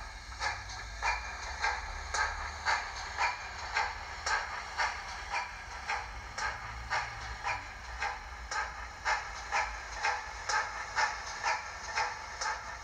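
Sound-fitted Dapol OO gauge GWR Mogul model running, its speakers playing recorded GWR Manor class steam exhaust from a Zimo MX659 sound decoder. The chuffs come in a steady beat of about two a second.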